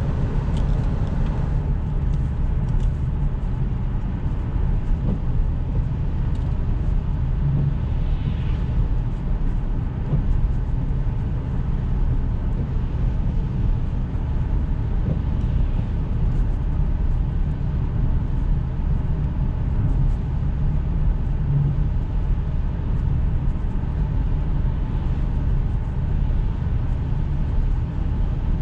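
Jaguar XF 2.7 V6 diesel heard from inside the cabin: a steady low engine hum that holds even throughout.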